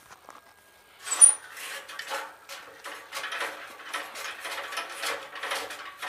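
Pliers clicking and scraping on a gas geyser's jammed water-control valve part as it is twisted and worked loose. A sharp click with a brief high ping comes about a second in, then a run of uneven clicks and scrapes, a few a second.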